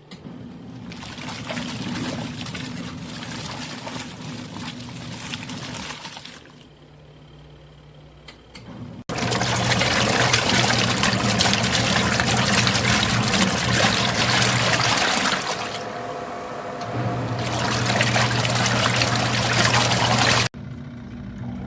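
Water rushing and splashing inside a ROVSUN twin tub portable washing machine, over a steady motor hum. The sound comes in two long stretches and breaks off abruptly twice.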